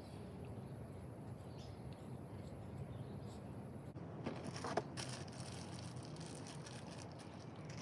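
Faint handling of packaging: a few short rustles and a light knock about four to five seconds in, over a low steady background hum.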